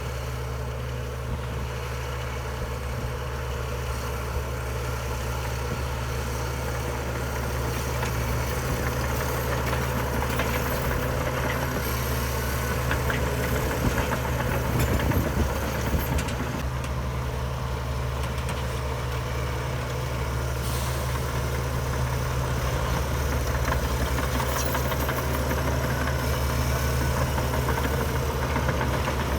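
Heavy diesel engine of earthmoving machinery running steadily with a low drone, getting somewhat louder about a quarter of the way in and again around the middle, with light scattered clanks.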